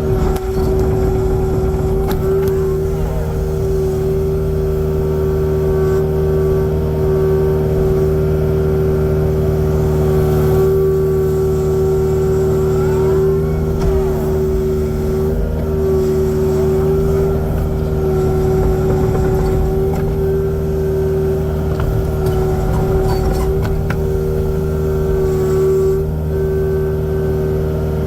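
Kubota excavator's diesel engine running steadily at constant throttle, a strong even hum that holds the same pitch throughout, with a few light clicks.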